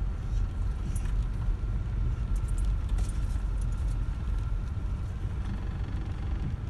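A car's engine and tyres give a low, steady rumble heard from inside the cabin as it rolls slowly along, with a few faint light clicks.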